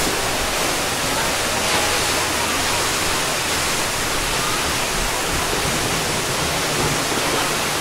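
Water discharge from the stone arch aqueduct of Tsujun Bridge: heavy jets of water gushing from the side of the bridge and falling into the river below, a steady rushing noise.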